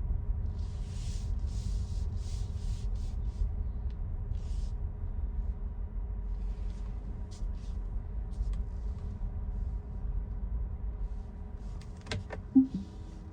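Tesla car driving on a wet road: a steady low road rumble with short, irregular bursts of hiss, and a brief sharp sound about twelve seconds in.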